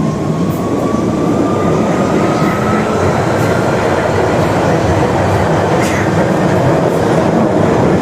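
London Underground 1992 Stock train running: a steady rumble, with a thin motor whine that rises slowly in pitch over the first few seconds as the train gathers speed.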